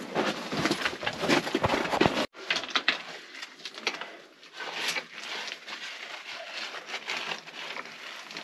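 Footsteps crunching on loose rock and gravel. After an abrupt cut about two seconds in, gloved hands scrape through rubble and small stones, rocks clinking.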